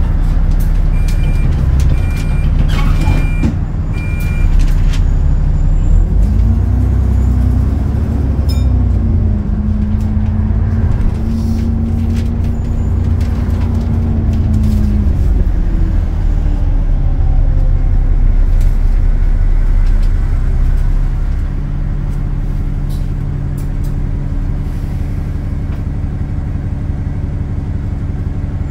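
Interior drone of an Alexander Dennis Enviro400 bus's diesel engine and Voith automatic gearbox as it drives. Four short high beeps about a second apart come near the start. A whine rises as the bus pulls away, holds, and falls away about halfway through. The drone drops a little in level later on.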